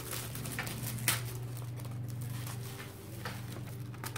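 Rustling and tearing of a small white packet being opened by hand, with scattered sharp crinkles and one louder snap about a second in, over a steady low hum.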